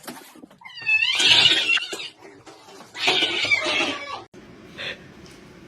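A cat yowling in two drawn-out, wavering calls, each about a second long, with a short faint sound near the end.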